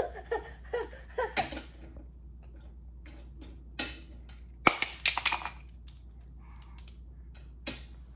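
Toy cars clacking and knocking against each other or a hard surface: a few separate sharp clicks, with a quick cluster of them about five seconds in.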